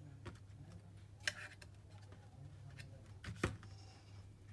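Hands handling the parts of an opened laptop: a brief scraping rustle about a second in and a sharp click or knock near three and a half seconds, over a steady low hum.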